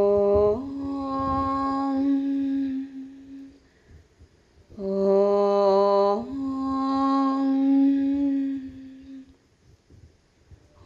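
A single voice chanting a slow, drawn-out two-note phrase in the manner of a mantra: each phrase holds a short lower note, then steps up to a longer note that fades away. The phrase comes twice, with a third beginning at the very end.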